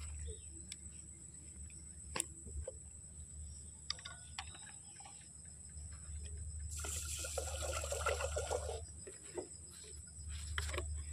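Water pouring out of a large plastic water jug for about two seconds, a little past halfway, to make rice; before it, small clicks and taps of the jug and its cap being handled.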